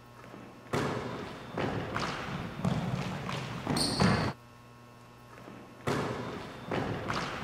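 A basketball being dribbled, with players' sneakers on a hardwood gym floor: a run of thumps and bounces, and a short high squeak about four seconds in. The sound drops out for about a second and a half, then the bouncing starts again.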